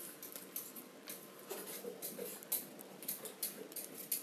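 Felt-tip marker scratching across paper in short strokes, with small clicks and taps in between.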